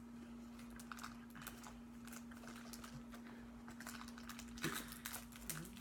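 Faint, irregular light clicks and crackles, denser near the end, over a steady low hum.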